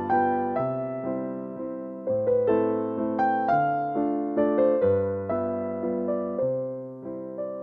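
Background music: a gentle piano or electric piano melody with struck notes that ring and fade.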